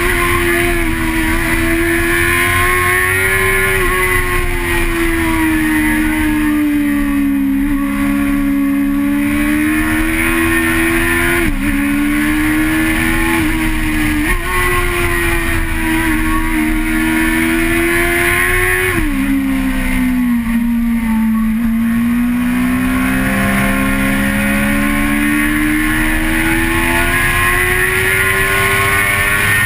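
Vehicle engine heard from onboard, running hard the whole time, its pitch gliding up and down as the vehicle speeds up and slows, with sudden jumps in pitch at several gear changes. A steady hiss of wind and road noise runs underneath.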